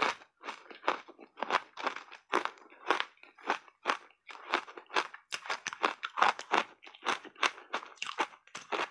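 A person chewing a mouthful of shaved ice with their mouth close to the microphone: a quick, even run of sharp, crisp crunches, about three a second.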